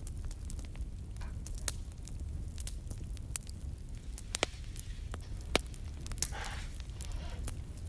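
Crackling wood fire: sharp pops and snaps at irregular intervals over a low steady rumble. A brief soft rustle comes about six seconds in.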